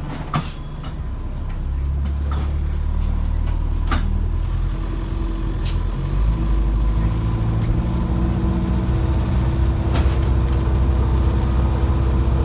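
Cabin noise of an Alexander Dennis Enviro400H MMC hybrid double-decker bus under way: a steady low drivetrain drone that grows louder about two seconds in and again about six seconds in, with a few sharp knocks and rattles from the bodywork.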